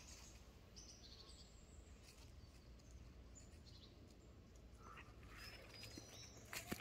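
Near silence: faint forest ambience with a few faint, high, brief bird chirps, and a couple of sharp clicks near the end.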